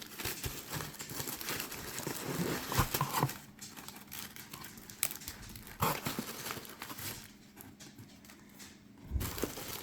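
Paper and packaging rustling and crinkling, with small taps and knocks, as an unboxing is handled. It is busiest for the first few seconds, thins to scattered clicks, and picks up again near the end.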